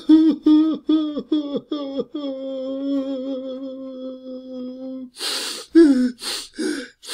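Adult man crying and whimpering: a quick run of short sobs, each dropping in pitch, then one long held whimpering wail, then sharp gasping breaths from about five seconds in.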